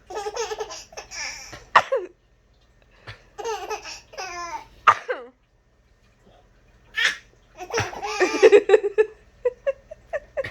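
Laughter, a young child's among it, in three bouts with short sharp outbursts between them.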